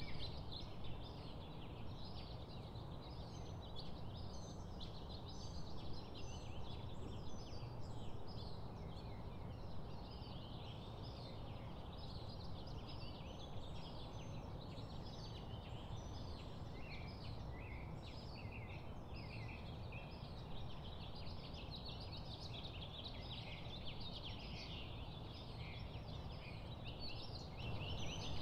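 Many birds chirping at once, short overlapping calls throughout, over a steady low background rumble.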